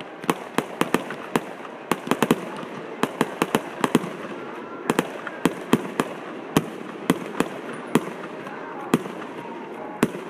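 Aerial fireworks display: an irregular run of sharp bangs and pops from shells and multishot effects bursting, several a second in clusters through the first half and thinning out to single reports later.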